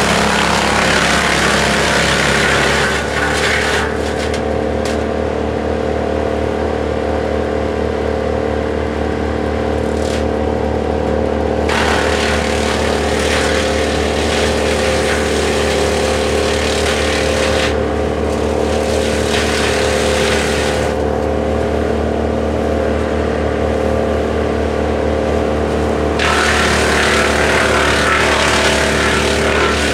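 Rayco towable wood chipper running at a steady high speed, with the rough rasp of brush and branches being chipped coming and going in several spells. The chipping is strongest near the start and near the end.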